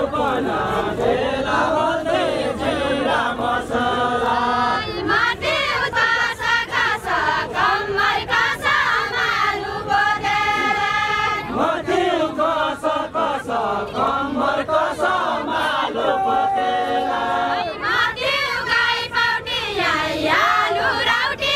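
A group of women singing a Deuda, a Nepali folk song, together in chorus, the many voices rising and falling with the phrases of the song.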